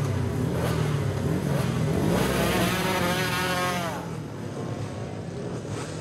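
Classic race motorcycles revving on the start line, then launching and accelerating away. Their engine note sweeps down in pitch as they pass and fade into the distance.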